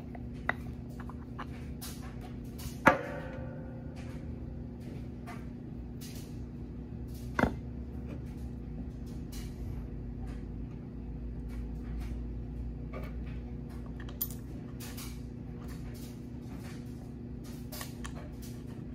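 Hand work on an air suspension bag: small clicks and metal clanks from a wrench and fittings. The loudest is a ringing clank about 3 s in, with another knock about 7 s in, over a steady electrical hum.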